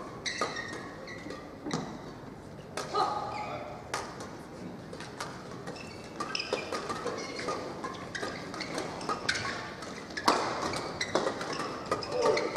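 Sports-hall sound between badminton rallies: short squeaks of shoes on the court floor and scattered thuds and taps, echoing in the large hall.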